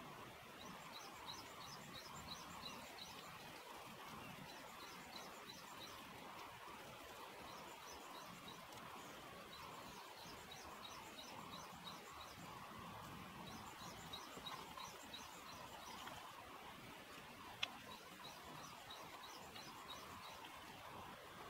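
A small bird calling in short runs of rapid high chirps, repeated every few seconds over a faint steady hiss. One sharp click comes about three-quarters of the way through.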